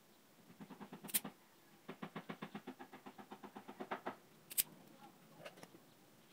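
Hand-held wire stripping tool working on a fan motor's wire leads: a sharp snap about a second in, then a quick run of clicks, about nine a second, for two seconds, then another sharp snap.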